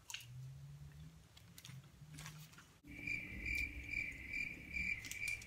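Faint chewing and a low hum at first. Then, after a sudden cut about three seconds in, a steady high-pitched chirping trill pulses about twice a second.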